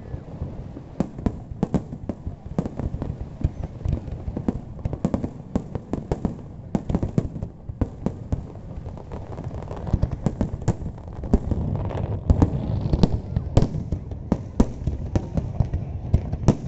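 Fireworks display: a dense, irregular run of bangs and crackles from shells bursting overhead, thickening into a louder, near-continuous barrage about two-thirds of the way through.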